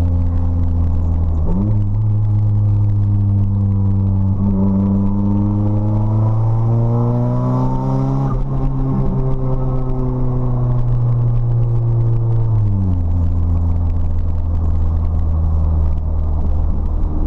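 Nissan SR20DET turbocharged 2.0-litre four-cylinder with a 3-inch straight-pipe exhaust, running under way. The engine note steps up about a second and a half in, climbs steadily for several seconds, holds, then drops back about two-thirds of the way through.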